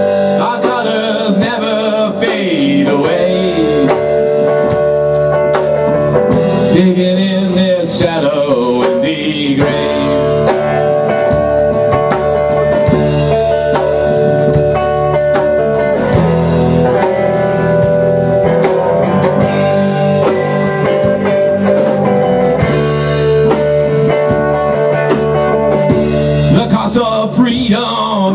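Rock band playing live: electric guitar, electric bass and a drum kit, loud and continuous.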